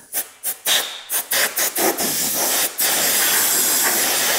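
Compressed-air blow gun clearing debris off a workpiece: several short blasts of hissing air, then one continuous blast of two seconds or more.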